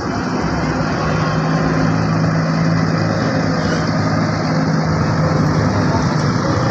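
A bus engine running with a steady low hum that grows gradually louder.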